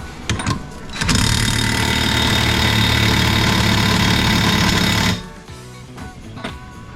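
Impact wrench hammering on a seized brake-assembly nut in one burst of about four seconds that starts about a second in and cuts off suddenly, the nut still not coming free. Background music underneath.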